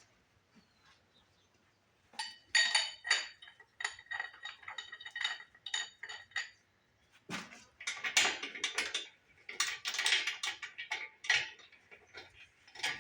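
Steel lifting chain and shackle hardware being handled. About two seconds in come ringing metal clinks, and from about seven seconds there is a denser clanking rattle.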